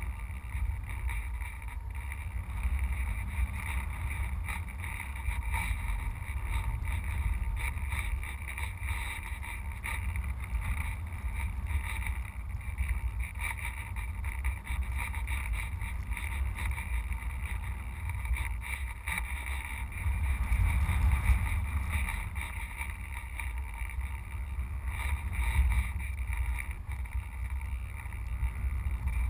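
Continuous wind buffeting on a GoPro camera mounted on a radio-controlled sailplane in flight, a heavy low rush that swells a couple of times in the second half.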